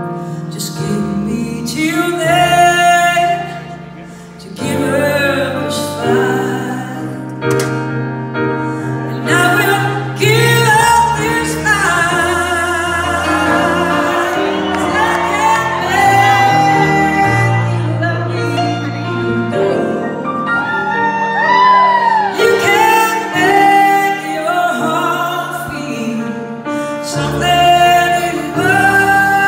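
Live performance of a slow ballad: a woman's lead vocal, wavering and held on long notes, over sustained keyboard chords. The music dips briefly about four seconds in.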